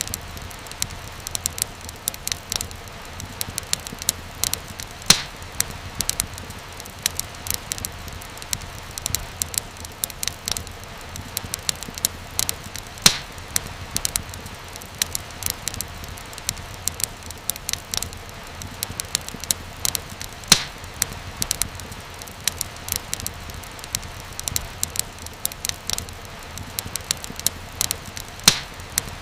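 Wood fire crackling, with constant small snaps over a low steady rumble and a louder single pop every seven or eight seconds.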